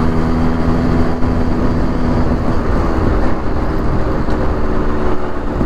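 Yamaha RX135's two-stroke single-cylinder engine running on the move, its note sagging a little and then rising again about four seconds in. Heavy wind rumble on the microphone runs under it.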